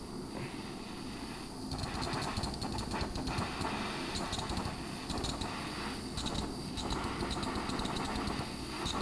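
Small handheld butane torch burning with a steady hiss of gas and flame while heating titanium to anodize it to colour.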